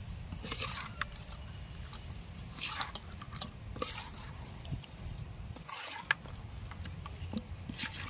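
Wet squelching and smacking of a hand and steel spoon turning fish through thick masala paste in a steel bowl, in irregular bursts, with a sharp click of the spoon against the bowl about six seconds in, over a low steady rumble.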